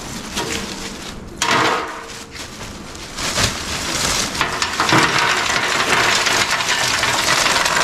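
Lumps of charcoal poured from a plastic sack into a steel grill box, clattering and rattling against the metal and each other. Short spills at first, then a continuous pour from about four seconds in.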